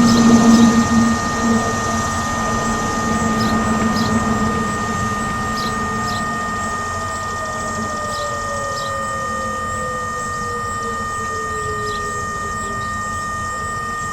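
Whelen WPS-3016 electronic warning siren stuck buzzing, a steady high-pitched hum instead of its test signal. The uploader guesses the fault is that the siren could not rotate to its position. From about six seconds in, a fainter tone slowly falls in pitch underneath.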